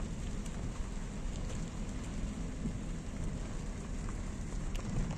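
Wind buffeting a phone's microphone outdoors: a steady rushing noise, heaviest in the low end, with faint scattered ticks.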